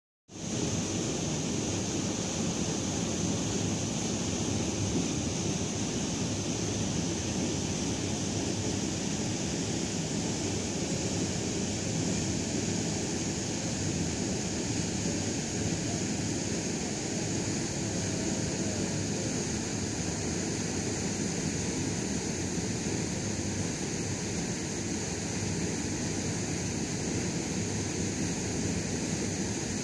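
Water rushing steadily out of a concrete outflow into a lake: a constant rushing noise with a steady high hiss over it and no breaks.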